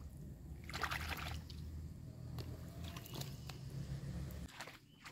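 Bare feet wading through shallow muddy paddy water: sloshing, splashing steps, the loudest splash about a second in. A low rumble underneath cuts off near the end.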